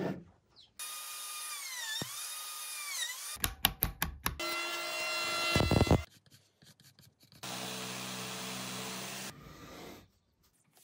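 A quick succession of workshop power-tool sounds with abrupt cuts between them. First a whining tool whose pitch dips and recovers twice, then a short burst of sharp knocks, then another tool running steadily; after a brief quiet, a steady motor hum runs for about two seconds.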